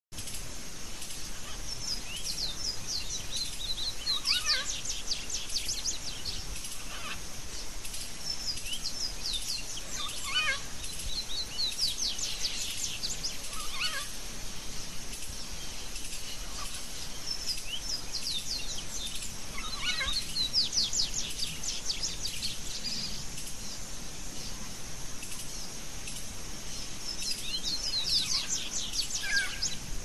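A songbird singing in four bouts of fast, repeated down-sweeping notes, each bout a few seconds long with several seconds between them, over a steady high hiss.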